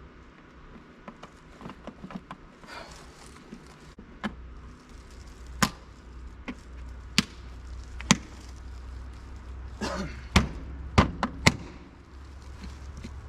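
Sharp clicks and knocks of small parts being handled and fitted, with light rustling: about seven distinct strikes, the loudest bunched in the second half. A low steady hum comes in about four and a half seconds in.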